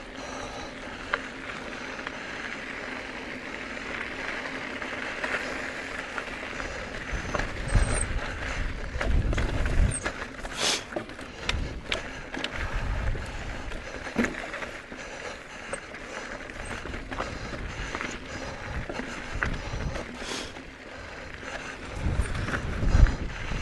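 Mountain bike rolling over a rough dirt trail: the chain and frame rattle, with scattered clicks and ticks and low thumps over bumps, which grow heavier about eight seconds in and again near the end. There are two short hissing bursts, one about halfway through and one a few seconds later.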